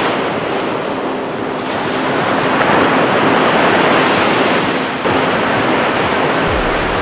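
Ocean surf breaking and washing up the beach, a steady rush that swells as a wave breaks about three seconds in.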